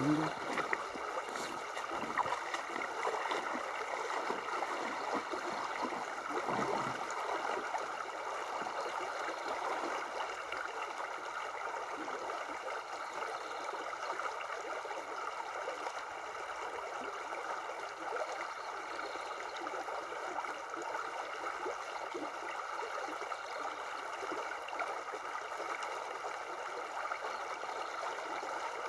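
Shallow river running over stones in a riffle: a steady babbling rush of water, with a few light knocks in the first couple of seconds.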